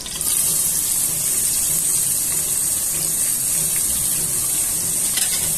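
Sliced onions sizzling in hot ghee: a steady hiss that starts suddenly as they drop in, just after the start.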